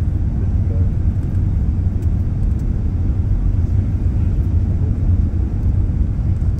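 Airbus A380 in flight heard from inside the passenger cabin: a steady low rumble of engines and airflow.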